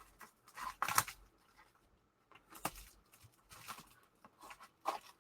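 Packaging being opened by hand: irregular short rustles and tearing sounds, the loudest about a second in.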